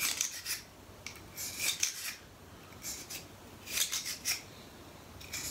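Bronze bore brush on a cleaning rod scrubbing through the chambers of a Rast & Gasser revolver's cylinder: short scraping strokes in quick clusters, about once a second.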